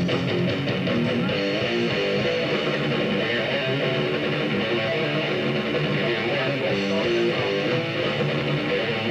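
Electric guitar riffing: a continuous run of quickly changing notes with no pause.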